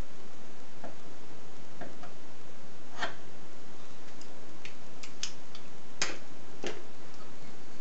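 Light clicks and taps of a digital caliper and a small metal block being handled and set down on a bench board, about ten in all, the sharpest about three and six seconds in, over a steady background hiss.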